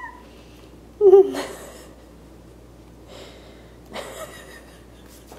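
A person's stifled laughter: a short, wavering laugh that trails off into breath about a second in, the loudest sound here, and a second, weaker burst of laughing breath about four seconds in.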